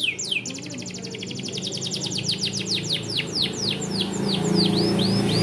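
Domestic canary singing. A fast, tight trill of very rapid high notes gives way about two seconds in to a run of downward-sweeping whistled notes, about three a second. A low steady hum runs underneath and grows louder near the end.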